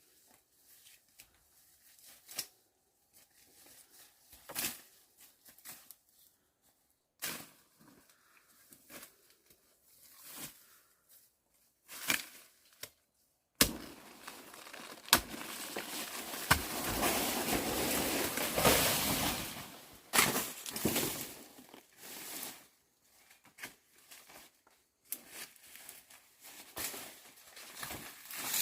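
Leafy greens being picked and handled by hand: repeated short rustles, crackles and tearing snaps of leaves and stems, with a louder stretch of continuous rustling in the middle.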